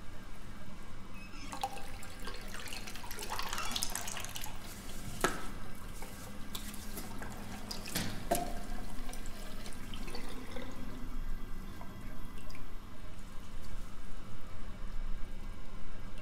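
Water running from a tap into a ceramic washbasin and splashing over hands being washed, with two short knocks about five and eight seconds in.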